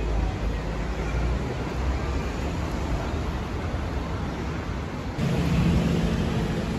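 City street noise with traffic running by. About five seconds in, a low steady engine hum comes in.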